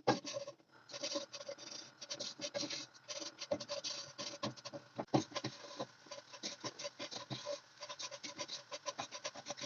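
Dense, irregular crackling and scratching of hands working dry shredded kunafa (kataifi) dough, with many small snaps that vary in loudness.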